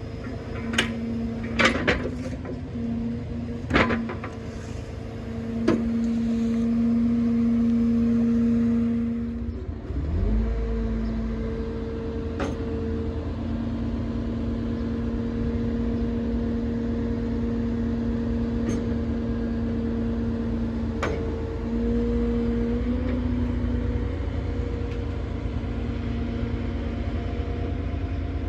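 Crane truck's diesel engine running with a steady hum, with several sharp clicks and knocks over the first six seconds. About ten seconds in the engine speeds up, rising in pitch, and then holds at the higher speed.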